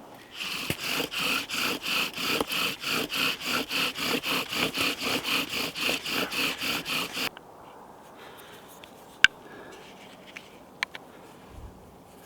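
Wooden bow drill spindle squeaking in the fire board with each stroke of the bow, a fast even rhythm of about four squeaks a second, which stops suddenly after about seven seconds. A few light clicks follow.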